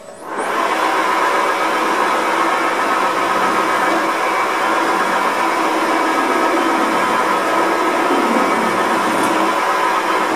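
Wood lathe starting up and spinning a brass bar while a ball gouge cuts into it. The sound comes up to speed in the first half second, then runs steadily.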